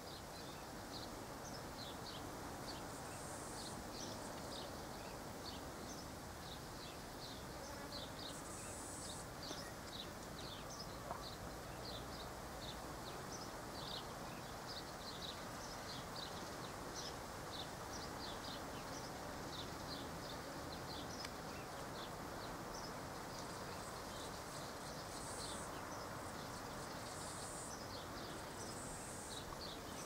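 Cicadas calling in the background: a faint, dense run of short high chirps, with a few brief higher-pitched buzzes now and then.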